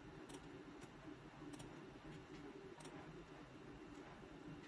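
Near silence with four faint computer-mouse clicks, irregularly spaced, over a low room hum.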